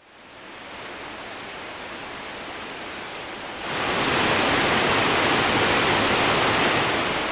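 Waterfall rushing in a steady roar of falling water, fading in at the start and becoming much louder and brighter about three and a half seconds in.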